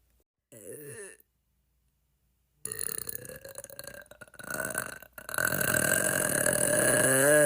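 Burping: a short burp falling in pitch about half a second in, then after a pause a longer uneven burp, then a long drawn-out burp from about five seconds in whose pitch wavers near the end.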